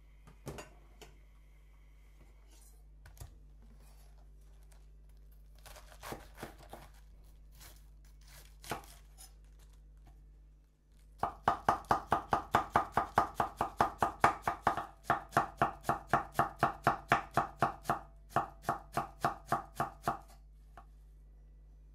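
Chef's knife finely shredding cabbage on a wooden cutting board: fast, even chopping strokes, about four a second, beginning about halfway through with a short break near the end. Before that, a few scattered light knocks.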